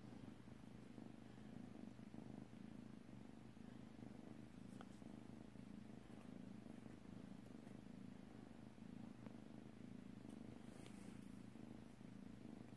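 Faint, steady purring from a kitten, with a few light ticks scattered through it.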